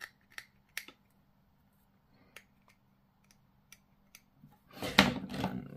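Small, sharp clicks and taps of plastic miniature parts being handled and pressed together between the fingers, then a louder, brief rustling scrape about five seconds in.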